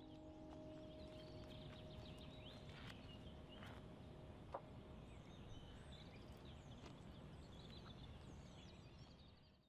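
Faint outdoor ambience: birds chirping over a low steady rumble, with the last piano notes fading out in the first second or two and a single brief knock about four and a half seconds in.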